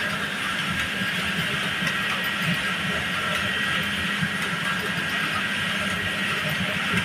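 Computerized jacquard flat knitting machines running on a sweater knitting floor: a steady mechanical hiss and rumble with a faint constant whine.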